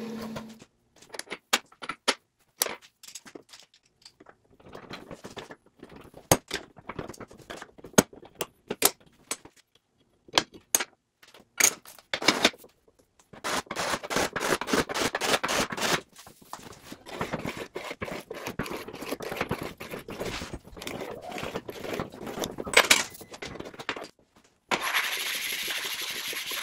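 A string of short, irregular metallic clicks and knocks, then a handheld cordless drill running in a hole in a steel plate in several stretches with short breaks.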